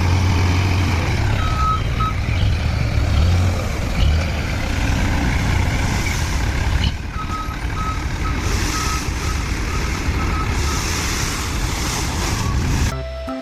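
Heavy truck engine running with a steady low rumble while a reversing alarm beeps, briefly at first and then regularly about twice a second; the sound stops suddenly near the end.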